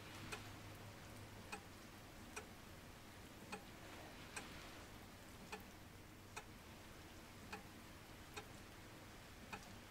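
Faint ticking of a clock, about one tick a second in an uneven tick-tock rhythm.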